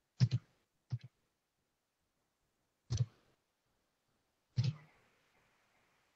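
Sharp clicks, mostly in quick pairs, four times over a few seconds, heard through a video-call microphone in an otherwise near-silent room.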